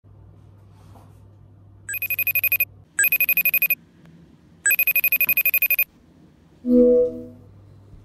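Mobile phone ringtone in the style of an old telephone bell: a fast electronic trill, rung three times, the third ring longer. A short, loud low hum follows about a second and a half later.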